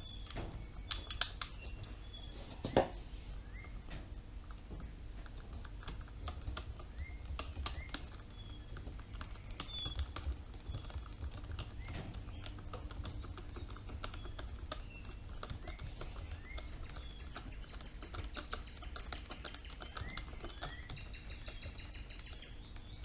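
A run of small irregular clicks and light taps, with one sharper knock about three seconds in: a screwdriver turning screws back into the plastic battery housing of a Dyson V6 stick vacuum. Faint short high chirps sound now and then behind it.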